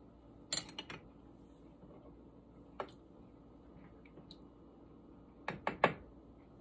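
A few short clicks and taps of a metal utensil against glass canning jars as it is worked down into jars of raw chicken: a quick cluster about half a second in, one near the middle and two near the end, with quiet room tone between.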